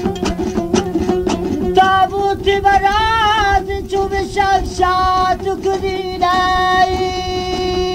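Dambura strummed in a quick, even rhythm, then a voice comes in about two seconds in, singing a Farkhari rubai with wavering, bending notes and a long held note near the end over the dambura, from an old cassette recording.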